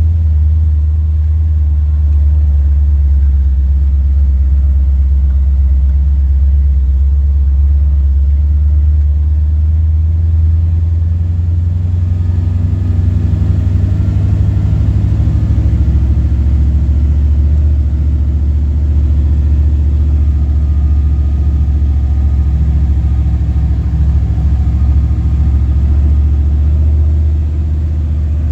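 Jeep engine and road noise heard from inside the cab while driving, a steady low drone that grows fuller about twelve seconds in. Over it runs the constant buzzing of the jeep's heater fan motor.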